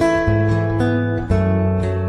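Background music: strummed acoustic guitar chords with no singing, a new chord struck about every second.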